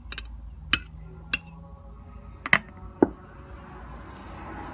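A glass bowl clinking and knocking four times against the dish, followed by a soft rustling hiss near the end as chopped onion is tipped out of the bowl onto the chicken wings.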